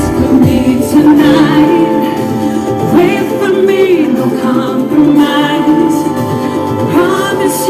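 Live pop concert music: a band playing with long, wavering sung vocal notes over it.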